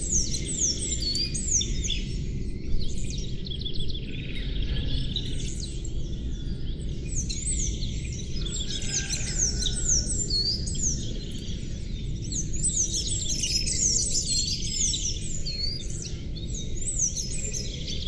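Several small birds chirping and singing together without pause, many quick falling whistles overlapping, over a steady low rushing background noise.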